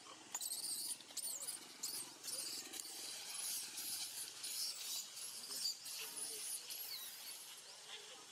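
High-pitched animal squeaks and chirps: many short calls gliding up and down in quick succession, thinning out near the end.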